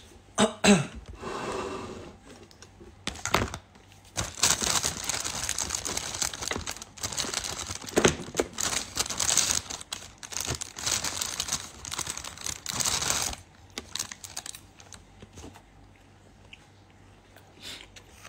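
Crackling, rustling handling noise close to the microphone, with scattered clicks; it turns dense from about four seconds in and stops abruptly about thirteen seconds in.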